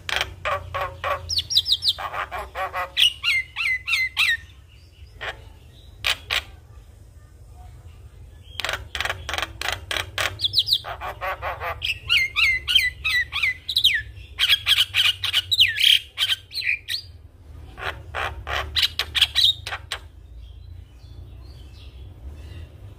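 Javan myna singing in bouts of rapid, harsh chattering clicks mixed with quick downward-sliding whistles, with pauses of a second or two between bouts. A steady low hum runs underneath.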